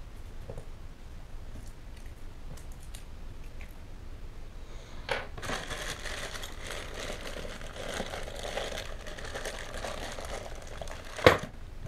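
Plastic wrapping crinkling and rustling as it is unwrapped and pulled open, starting about five seconds in, with one sharp knock near the end.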